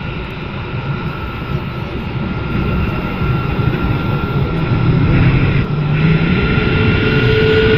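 Aircraft engine running with a steady whine over a low rumble, growing louder and rising slightly in pitch; a second, lower tone joins near the end.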